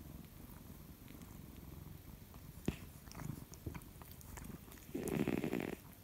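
A sleeping cat snoring: a faint low rumbling breath, then a louder snore about five seconds in that lasts just under a second.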